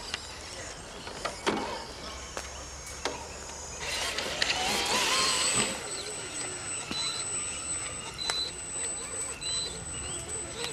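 Small electric motors and geartrains of scale RC crawler trucks whining as they climb, with scattered clicks and knocks from the trucks on the ground. It is louder for a moment about four seconds in, and a thin high-pitched whine comes in about halfway through.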